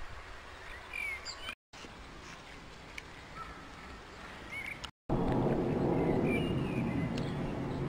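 Outdoor ambience with small birds chirping now and then. The sound drops out twice for an instant, and after the second dropout a much louder, steady low rushing noise takes over.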